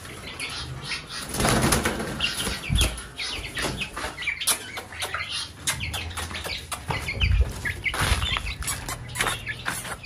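Young Shamo aseel chickens flapping their wings as they scramble out of a wire cage, in several separate bursts of flapping and rustling, with short high chirps in between.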